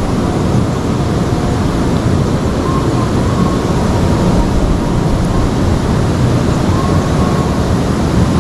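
Steady rush of flowing river water, loud and low-heavy, with two faint short tones about three and seven seconds in.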